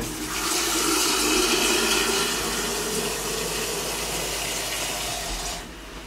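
Kitchen tap running into an electric kettle, filling it; the water stops about five and a half seconds in.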